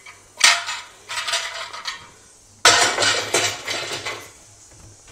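Stainless steel mini idli plates clanking and rattling against each other as they are handled and put away, in two bouts. The second bout, about two and a half seconds in, starts with a loud clank.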